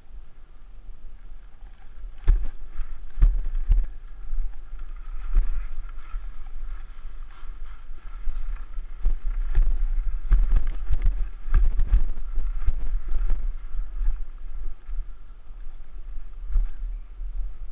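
Wind rumbling on an action camera's microphone, with frequent knocks and rattles as the camera travels fast over a rough dirt trail, picking up from about two seconds in.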